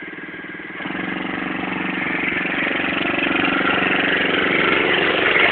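Small youth ATV engine running, picking up about a second in and growing steadily louder as the quad comes closer.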